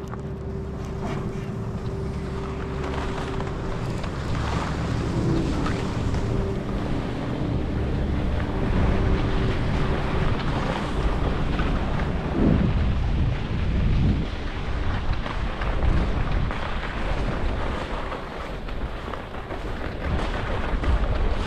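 Wind rushing over the camera microphone during a downhill ski run, with the steady hiss and scrape of skis sliding on the snow. The rush swells in the middle and eases off near the end.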